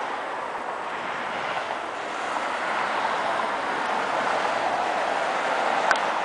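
Turbofan engines of an Embraer ERJ-145-family regional jet on final approach with gear down: a steady rushing jet noise that grows a little louder about two seconds in. A short click near the end.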